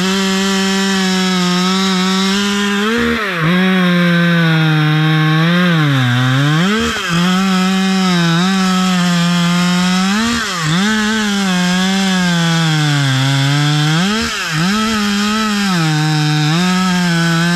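Husqvarna T540 XP Mark III 40 cc two-stroke top-handle chainsaw running at high revs through a cut in a roughly 5-inch log. The engine note sags briefly every few seconds and picks back up.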